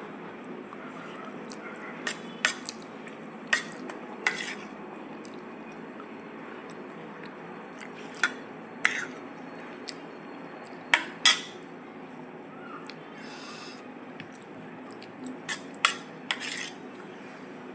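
Kitchen utensils clinking against dishes and pots: about a dozen sharp clinks at irregular intervals, loudest around the middle, over a steady low hum.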